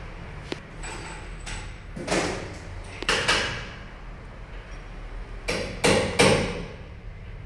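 Sharp metal knocks and clanks from parts of a dismantled Bosch diesel injection pump being worked on, in irregular groups. A few light clicks come in the first second and a half, louder clanks follow around two and three seconds in, and three loud clanks in quick succession come near the end.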